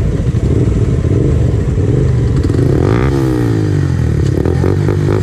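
Several motorcycle engines running close by, one bike riding past at the start, with revs rising and falling from about halfway through.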